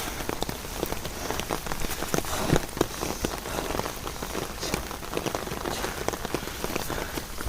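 Rain falling, with many close raindrops tapping sharply on surfaces over a steady hiss; a cluster of louder hits comes about two and a half seconds in.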